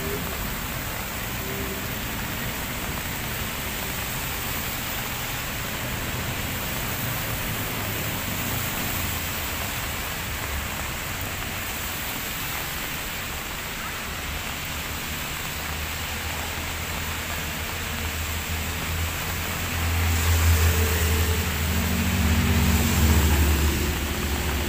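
Steady rain falling on wet pavement and foliage, mixed with the hiss of traffic on a wet road. A heavier low rumble swells in near the end.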